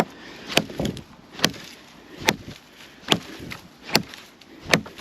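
An axe chopping a small tree into pieces: six sharp blows, about one every 0.8 seconds.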